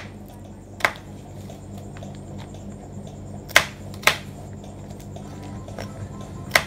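A kitchen knife chopping a green vegetable on a plastic cutting board: about five separate sharp knocks at irregular intervals, two of them in quick succession just past the middle, over a faint steady low hum.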